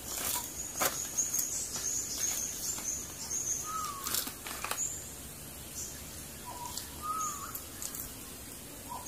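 Tropical forest birds calling: rapid short high chirps, repeated for the first few seconds, and a lower whistled note that dips and rises, heard several times. A faint steady high insect hum runs underneath.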